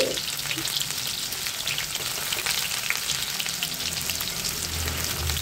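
Hot oil sizzling and crackling steadily in a black wok as small pieces fry in it, with a metal spatula stirring through.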